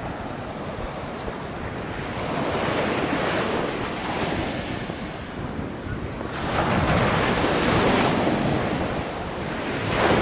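Baltic Sea surf washing onto a sandy beach, swelling and fading every few seconds, with wind buffeting the microphone.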